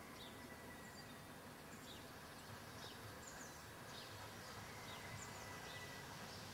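Faint birdsong: short, high falling chirps repeating every second or so over a quiet, even background hiss.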